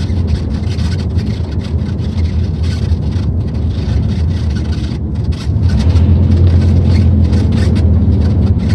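Pickup truck driving, heard from inside the cab: a low engine drone and road noise, with a rapid crackling rattle from loose styrofoam in the truck catching the wind. The engine drone grows louder a little past halfway through.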